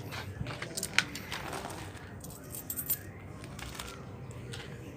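Small loose metal objects jingling and clinking, with scattered sharp clicks; the sharpest click comes about a second in, and a short run of clinks follows near the three-second mark.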